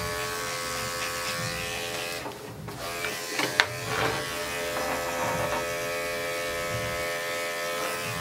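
Corded electric dog grooming clipper running with a steady buzzing hum as it trims fur on and between a dog's paw pads. The hum dips briefly a couple of seconds in, and there is a sharp click about three and a half seconds in.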